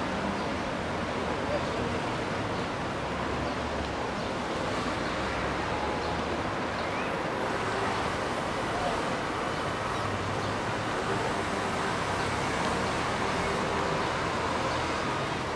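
Steady rushing noise of distant city traffic, mixed with wind on the microphone.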